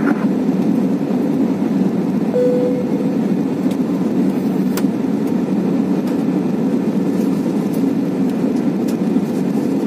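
Steady drone of a jet airliner cabin in flight: engine and airflow noise heard from a window seat beside the engine, even and unchanging.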